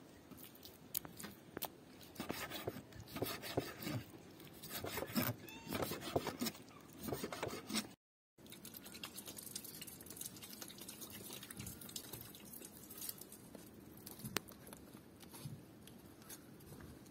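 A knife slicing raw chicken on a tree-stump chopping block: irregular knocks and slicing strokes of the blade on the wood for the first half. After a sudden break, a quieter stretch with faint, sparse ticks.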